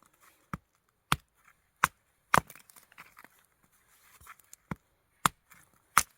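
Wood being chopped: about seven sharp, separate strikes as a blade splits sticks into kindling, with a pause of about two seconds midway.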